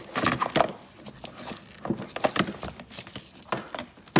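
Maxi-Cosi Vita Smart car seat's ISOFIX strap and connector being pulled out of their storage compartment in the seat's plastic base: irregular plastic clicks and knocks with rustling of the webbing, ending in one sharp, loud click.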